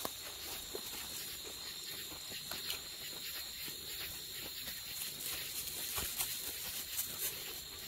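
Night insect chorus, crickets or katydids, as a steady high-pitched trill, with soft footsteps on a dirt trail.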